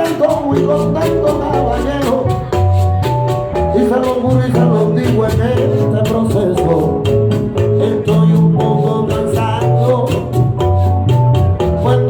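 Salsa band playing: a bass line, percussion and melody instruments over a steady dance beat.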